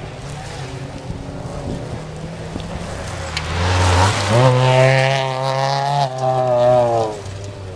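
Ford Fiesta rally car approaching at speed on gravel and passing close by. Its engine note climbs in pitch and loudness from about three and a half seconds in, holds high and loud as it passes, dips briefly about six seconds in, then drops and fades as the car pulls away.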